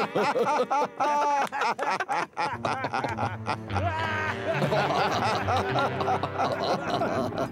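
Cartoon characters laughing over background music for the first couple of seconds, then the music carries on alone with a steady bass line.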